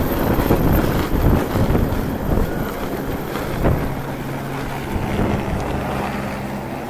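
Medical helicopter's rotor and turbine engine as it climbs away overhead, with rotor downwash buffeting the microphone. Loudest at first, it eases off slowly as the helicopter gains height.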